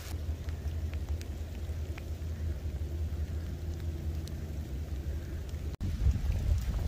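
Wind buffeting the microphone in a low steady rumble, with faint rain patter; the sound drops out briefly near the end.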